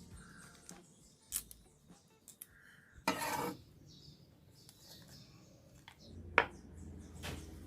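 Kitchen utensils and dishes clinking and knocking during food preparation: scattered sharp clicks, a short noisy scrape about three seconds in, and one loud sharp clink a little after six seconds.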